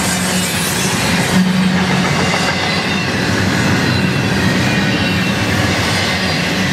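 Double-stack container train's well cars rolling past on a curve: a steady loud rumble of steel wheels on rail, with a faint high squeal from the wheels in the curve.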